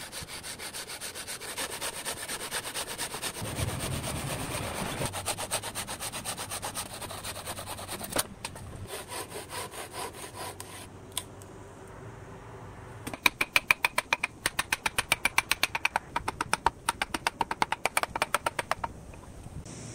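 Hand saw cutting through Fujian cypress wood in fast, even rasping strokes, loudest in the second half.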